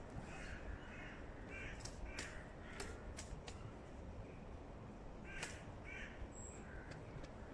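Crows cawing repeatedly in short runs of two or three harsh calls, with a few sharp clicks in between.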